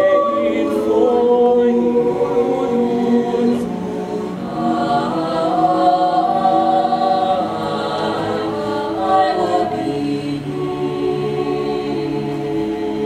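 A choir singing slow, held notes, several voices together.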